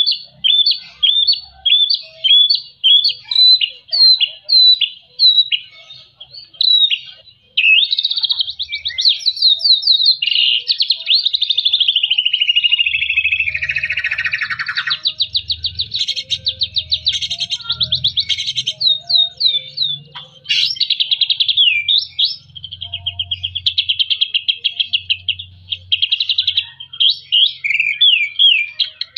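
Male white-rumped shama singing. It opens with a run of short repeated whistled notes, about two a second. From about seven seconds in it breaks into a dense, unbroken stream of fast trills, rattles and slurred warbles.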